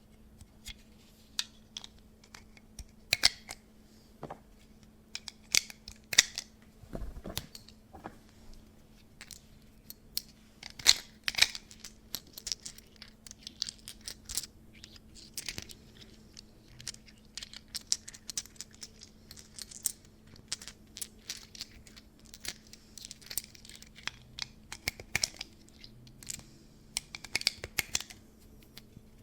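Plastic parts of a 3D-printed PLA Glock 43x being handled and fitted together or taken apart: irregular sharp clicks, snaps and scrapes, with a dull knock about seven seconds in.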